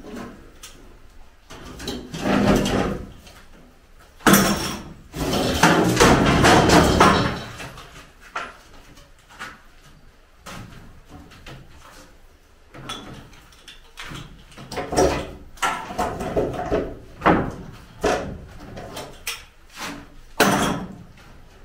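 Timber formwork being stripped with a steel bar: wooden boards knocked, levered and scraped loose, clattering against each other. The busiest, longest rattle comes a few seconds in, with a run of sharp separate knocks near the end.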